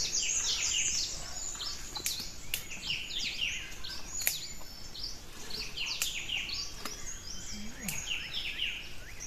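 A flock of small birds chirping and twittering continuously, many quick overlapping calls. A handful of sharp clicks or knocks are spread through it.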